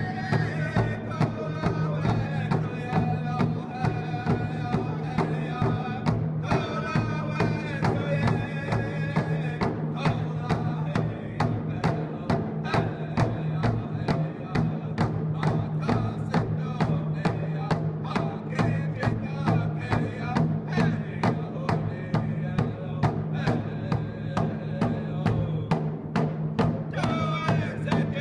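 Music with a steady drum beat over a sustained bass line and a melody.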